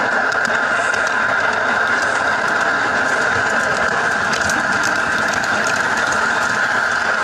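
Ride-on garden railway locomotive running along its track: a steady high-pitched hum over running noise from the wheels, with scattered clicks and rattles.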